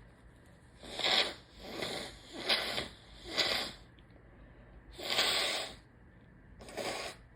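A person blowing their nose in six short forceful blows through a congested nose, the right nostril so blocked that little clears.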